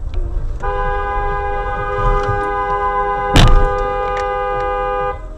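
Car horn held down on a steady two-tone note for about four and a half seconds, with a single loud bang of a collision about three and a half seconds in.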